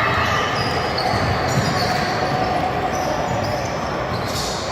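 Sounds of a youth basketball game in a gym: a ball bouncing on the court, with distant voices in the hall.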